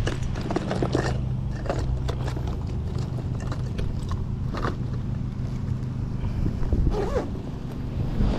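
A steady low motor hum runs throughout, with scattered short clicks and knocks over it.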